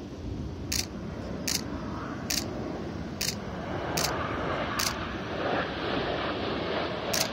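Nikon D800 DSLR shutter firing single frames, seven sharp clicks about every 0.8 s with a pause before the last. Behind them, the jet noise of the Frecce Tricolori's Aermacchi MB-339 formation grows louder through the second half as the jets approach.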